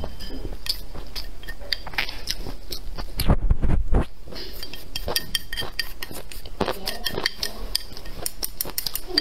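Close-miked eating: a mouthful of rice chewed with small wet mouth sounds, and wooden chopsticks tapping and scraping against the bowl in many short clicks, with a louder stretch of biting and chewing a little past three seconds in.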